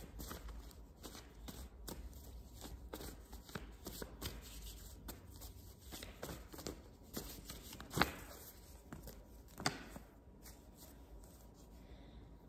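Tarot cards being shuffled and handled by hand: a run of soft flicks and ticks, with two sharper card snaps about two-thirds of the way through.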